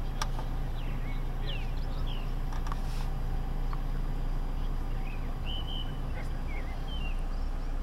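Mitsubishi Colt 1.3's engine idling, a steady low hum heard from inside the cabin, with a few short high chirps from birds outside.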